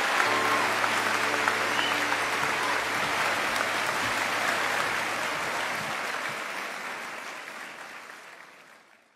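Large audience applauding, a dense sustained clapping that fades out over the last few seconds.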